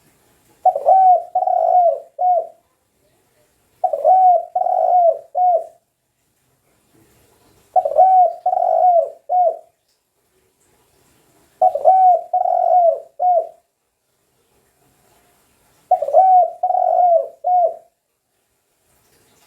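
Spotted dove (tekukur) cooing: five phrases of three to four coos each, one phrase about every four seconds with silence between.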